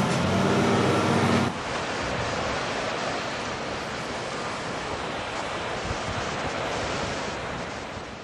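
Engine of the heavy equipment filling the baskets runs steadily, then cuts off sharply about a second and a half in. Steady ocean surf and wind noise on the microphone follow and fade out near the end.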